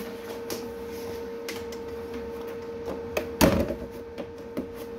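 A few light clicks and knocks, then one louder clunk with a short rattle about three and a half seconds in, over a steady electrical hum.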